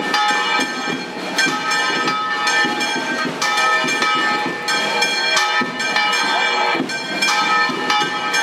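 Church bells pealing: several bells struck over and over, their ringing tones overlapping and sustaining between strokes.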